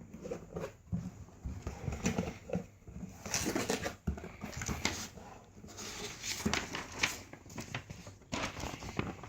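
A shipping package being opened by hand: irregular rustling, scratching and crinkling of packaging, with many small clicks.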